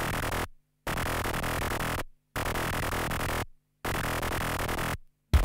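Electronic music in short repeated bursts of about a second each, cut by brief silences, with a beat coming in near the end.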